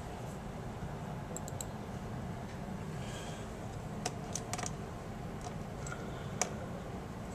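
Scattered small clicks and taps of a small screwdriver and screws against a laptop's plastic screen frame, a few in quick succession about four seconds in. A steady low hum lies under them.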